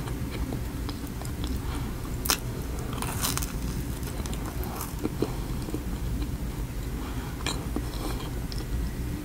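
Close-miked eating of a chocolate-glazed Oreo donut: wet chewing with sharp biting snaps, the loudest a little over two seconds in, over a steady low hum.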